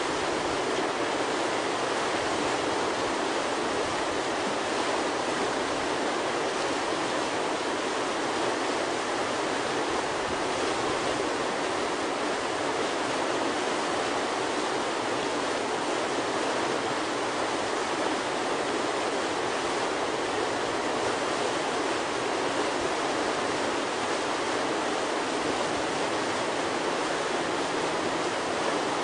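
Steady rushing roar of whitewater from a standing wave breaking in a river rapid, an even, unchanging wash of water noise.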